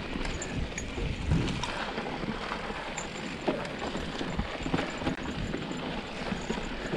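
Mountain bike rolling down a dry dirt and rock singletrack: tyre noise over the dirt and stones, with irregular knocks and rattles from the bike over the bumps and a low rumble of wind on the microphone.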